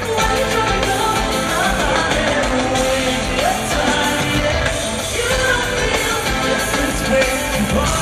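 Live pop-rock band playing with a male lead vocal singing into a microphone, heard loud through an arena sound system from within the crowd.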